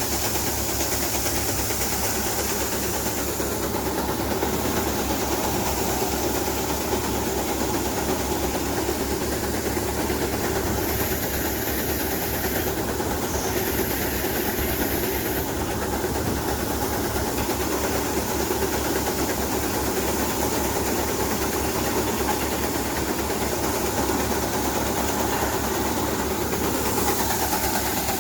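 Tractor-driven maize sheller running steadily, with an engine's fast, even low throb under a continuous clattering hiss of the machine at work.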